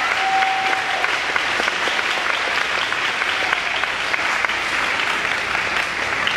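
Audience applauding steadily at the end of a freestyle unicycle routine.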